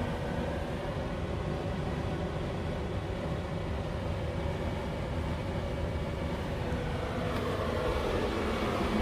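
Steady low rumble and hum from an appliance drawing about 1300 watts through a 2000 watt inverter, the inverter's cooling fan running under the load. A faint pitched hum comes back in near the end.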